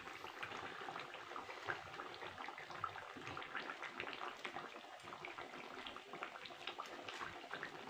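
Fish and drumstick curry simmering in the pan, its gravy bubbling faintly with many small irregular pops, while gravy is spooned over the freshly added fish.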